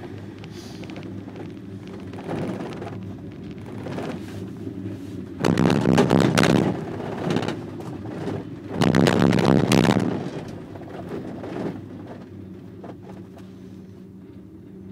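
Inside a four-seat POMA detachable gondola cabin riding the haul rope: a steady low hum, with two loud rumbles about five and a half and nine seconds in as the cabin's grip runs over a support tower's sheave rollers.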